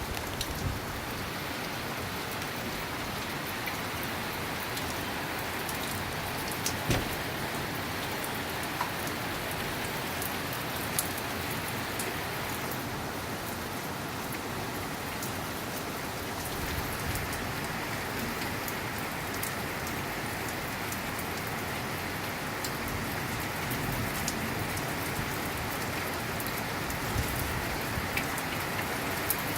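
Steady rain falling, with scattered sharp taps of drops hitting a nearby surface and one louder tap about seven seconds in.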